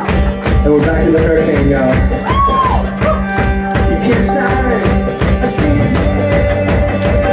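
Live rock band playing a fast song: the full band, drums included, comes in loud at the start and drives on at a quick, even beat.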